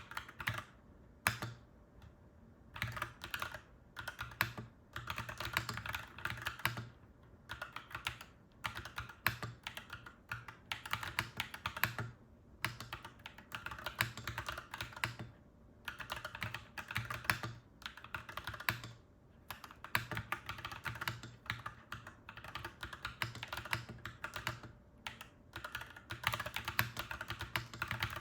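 Clacky mechanical keyboard being typed on in quick bursts of keystrokes, with short pauses between the bursts.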